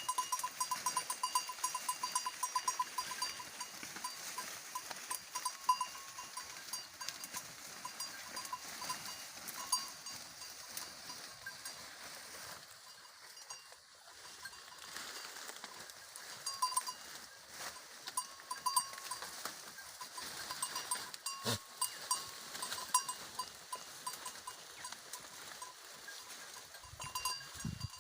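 Small bells on goats clinking on and off as the animals move, over a haze of light clicks and rustling, with one sharp knock about two-thirds of the way through.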